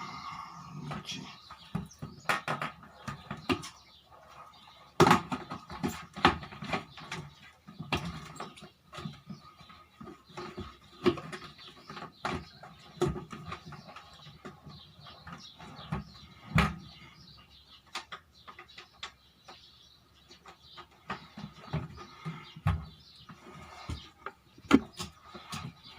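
Plastic parts of a table fan being handled and fitted together by hand: irregular clicks, taps and knocks, with a few sharper knocks about five seconds in and again past the middle.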